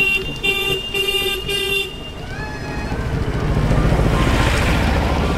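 A vehicle horn beeps in quick repeated pulses for about two seconds. Then a motor vehicle's engine rumble grows louder as it comes close.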